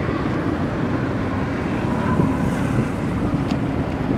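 Steady rumble of wind on the microphone, with waves washing.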